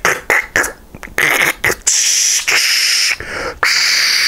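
A man making static noises with his mouth into a mobile phone to fake a bad connection: a quick run of short clicking, spitting bursts, then long hissing 'shhh' sounds with short breaks.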